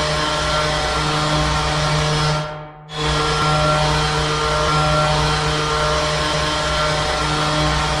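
Ice hockey goal horn blowing two long, loud blasts with a brief break about two and a half seconds in.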